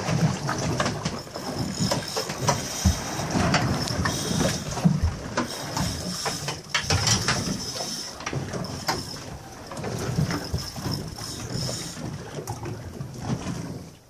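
Wind buffeting the microphone on an open boat at sea, with a steady high-pitched hiss and irregular knocks and clicks throughout.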